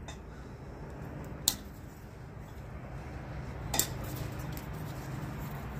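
Light metal-on-metal clinks as a mechanics wire and bladder fitting are worked at the neck of a steel hydraulic accumulator bottle. There are two sharp clinks, one about a second and a half in and one near four seconds, over a low steady hum.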